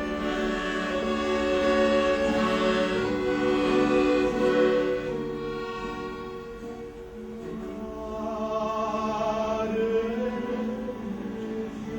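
Classical-style music with long held notes, some with vibrato. It is louder in the first half, dips about six seconds in, then swells again.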